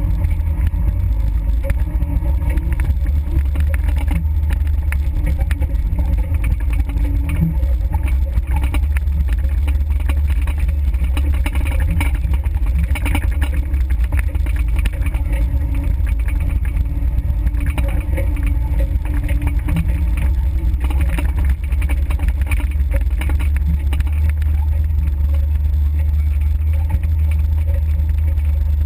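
Off-road 4x4 driving slowly along a rough dirt trail, heard from a camera mounted on the vehicle: a steady low engine and drivetrain rumble, with rattles and knocks from the vehicle jolting over the ground.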